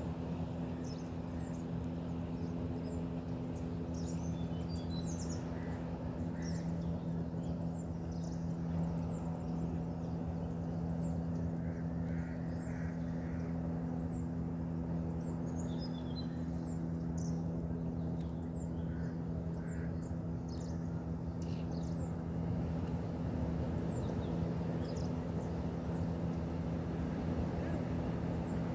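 A boat's engine running with a steady, unchanging hum, while birds give many short, high chirps throughout.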